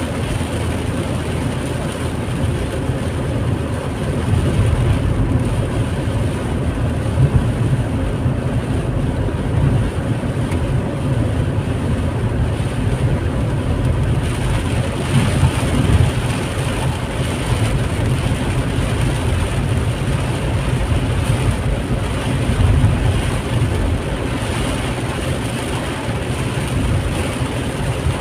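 Steady road noise inside a moving car in heavy rain: engine and tyres on the wet road give a deep rumble, with the hiss of rain and spray over it. The hiss gets stronger about halfway through.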